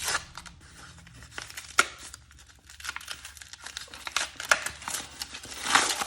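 Plastic-and-cardboard blister pack of trading cards being torn open by hand: irregular crinkling and tearing with sharp crackles, loudest near the end.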